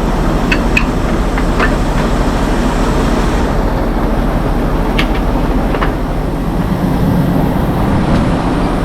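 Fire truck engine running steadily, driving its pump to supply water to the other fire engines. A few light clicks sound in the first two seconds and again about five seconds in.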